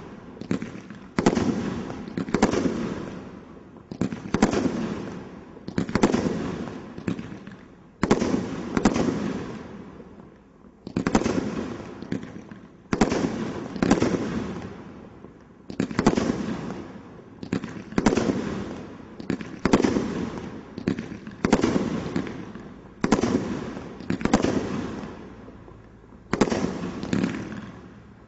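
Stealth 'Magical Palms' Cat 3 combination roman candle cake firing shot after shot, a loud bang with crackle roughly every one to two seconds, each fading before the next. There is a longer pause about a third of the way in.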